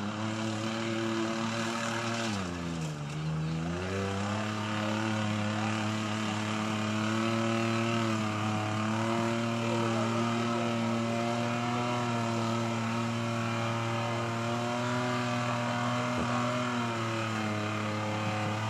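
Pickup truck engine revving hard in a mud bog: the revs dip and climb again about three seconds in, then are held high and steady as the truck sits bogged down to its axles, easing off a little near the end.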